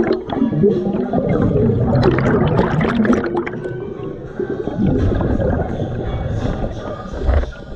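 Scuba regulator exhaust bubbles gurgling underwater as a diver exhales, loudest around two to three seconds in. A low thump comes near the end.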